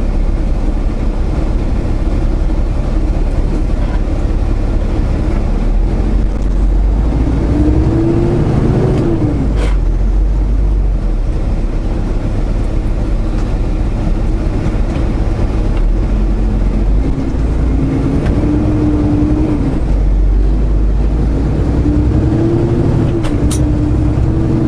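Semi-truck's diesel engine and road rumble heard inside the cab, the engine note rising and falling three times as the truck pulls ahead in stop-and-go traffic. A couple of sharp clicks sound, one about ten seconds in and one near the end.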